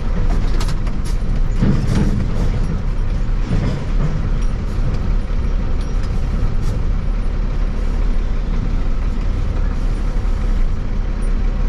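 Road vehicle noise: a steady low rumble, with a few brief clicks and knocks in the first few seconds.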